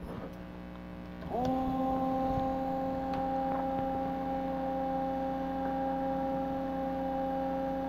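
Windshield wiper motor switched on about a second in, coming up to speed almost at once and then running with a steady hum as it turns the crank arm and linkage.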